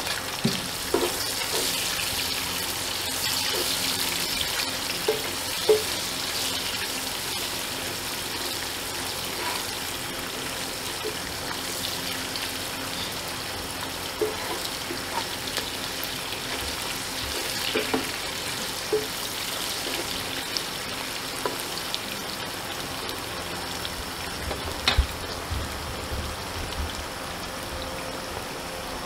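Sliced onions frying in oil in a pot, sizzling steadily, strongest in the first few seconds, with occasional knocks of a wooden spatula against the pot as they are stirred.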